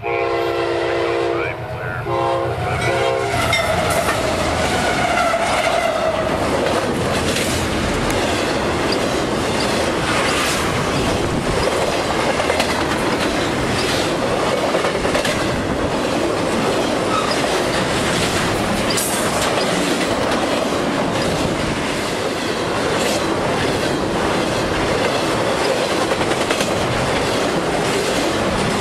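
Diesel freight locomotive's air horn sounding one long and two short blasts. The locomotive then passes and a double-stack container train rolls by, its wheels clattering steadily over the rail joints.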